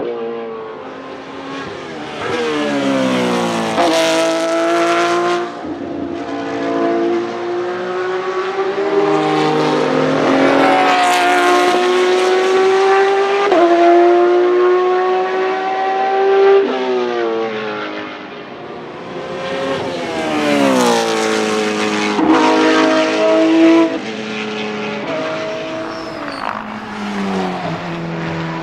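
Porsche 991.2 GT3 R race cars' 4.0-litre naturally aspirated flat-six engines, on a straight-through unmuffled exhaust, accelerating hard through the gears. The note climbs and drops sharply at each upshift, swelling as a car comes by and fading as it pulls away.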